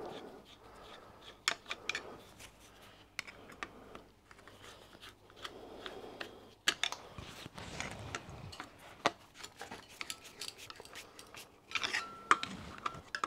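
Screwdriver driving small screws into a brass cover plate on a Stuart model steam engine: scattered small metallic clicks and scrapes.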